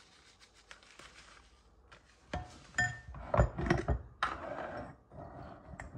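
Kitchen containers and utensils being handled while seasonings are added: a run of knocks and clinks starting about two seconds in.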